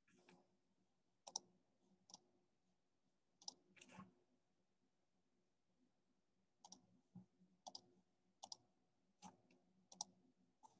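Faint, scattered clicks of a computer keyboard and mouse, about a dozen, some in quick pairs, with near silence between.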